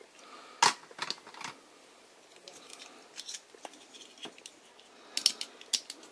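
Hard plastic toy parts clicking and knocking together as a weapon piece is pushed and turned against a Tomica Drive Head transforming robot, not yet latching into place. A sharp click comes about half a second in, two more follow within the next second, and a quick run of clicks comes near the end.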